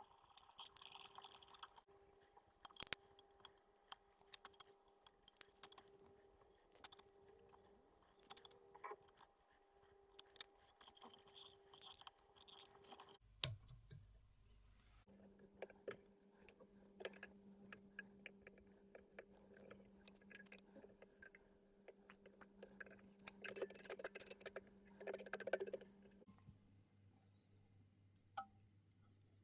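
Faint clicks, taps and rustles of small tools and materials being handled while dressing a treble hook at a workbench, busiest a little before the end. A faint steady hum sits underneath and changes pitch at cuts about 13 and 26 seconds in.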